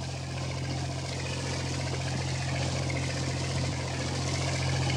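Boat engine running steadily: a constant low drone under an even hiss of water and wind.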